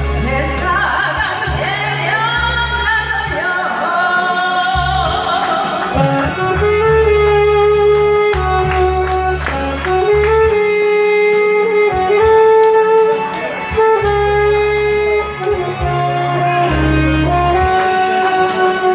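Korean trot song performed live: a sung melody of long held notes over a backing track with a pulsing bass line.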